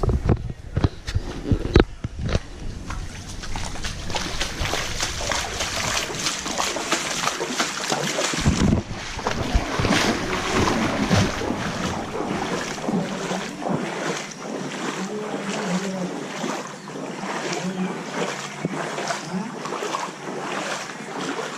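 Floodwater splashing and sloshing as a person wades through it, with a splash at each stride, about two a second in the second half.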